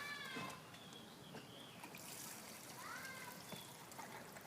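Faint trickle of gasoline being poured from a gas can into a lawn mower's fuel tank, with a leaky nozzle spilling fuel. Two short high calls, one at the start and one about three seconds in.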